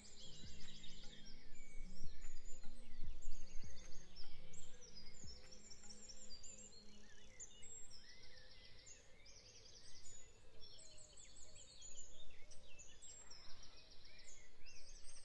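Background music track with high, rapid chirping sounds repeating throughout, and steady low tones in the first few seconds.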